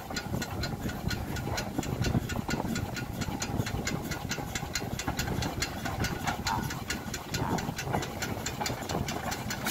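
Small industrial steam locomotive working a short passenger train at low speed, with rapid even exhaust beats, about six a second, over a low rumble of wheels and motion.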